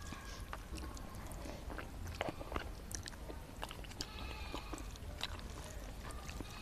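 People eating instant noodles: chewing and mouth sounds with many scattered small clicks.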